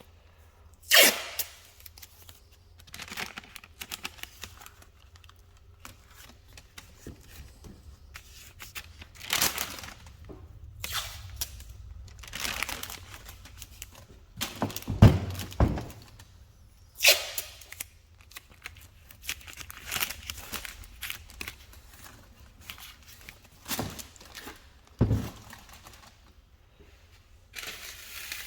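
Masking tape and paper being peeled off a painted helmet and crumpled, in irregular rips and crinkles, with two dull knocks partway through.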